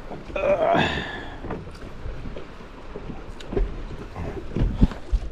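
A few dull knocks and bumps on a bass fishing boat over a low rumble, with a brief voice-like sound about half a second in.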